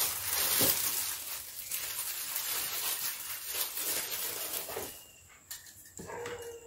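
Clear plastic bag crinkling and rustling as a small plastic skeleton model is pulled out of it, dying away about five seconds in.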